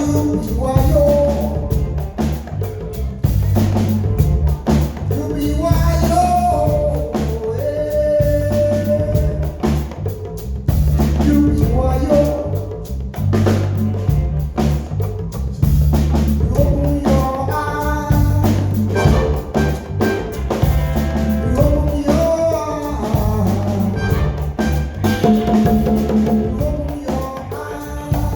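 Live Afrobeat band playing: drum kit and a repeating bass line under pitched melody lines, with some singing.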